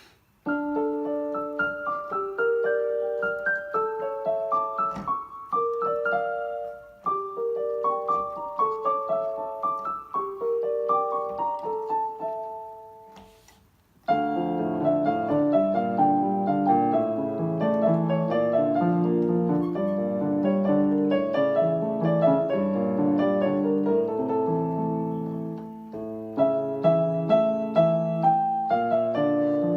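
Background piano music: a light melody of single notes fades out about halfway through, and a fuller passage with lower chords starts right after.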